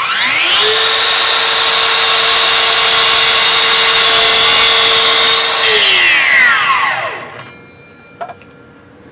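Makita LS002GZ 40V cordless slide compound mitre saw: the motor spins up with a rising whine, then runs at a steady high whine as the blade is chopped down through a 2-inch piece of wood without sliding. Near the end the trigger is released and the whine falls away over about a second and a half.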